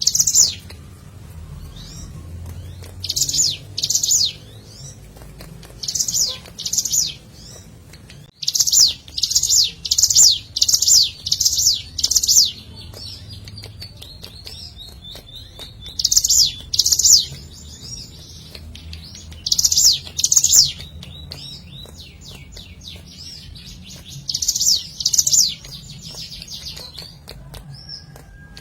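Ciblek gunung singing: loud bursts of quick, high notes in clusters of two to six, repeated every few seconds, with quieter twittering in between.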